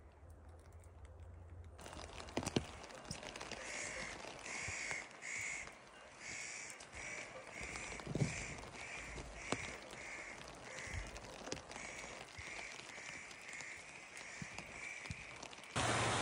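A bird calling over and over in a long, even series, about two short calls a second, over a faint patter of rain and drips in the forest. Near the end a loud steady rushing noise cuts in suddenly.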